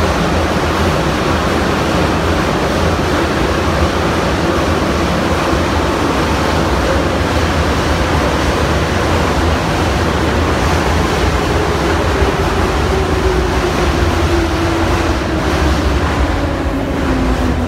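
Cab-less passenger car of an 81-717.5/714.5 metro train running through a tunnel, heard from inside: a steady loud rumble and rush of wheels and air. In the second half a motor whine falls steadily in pitch as the train slows.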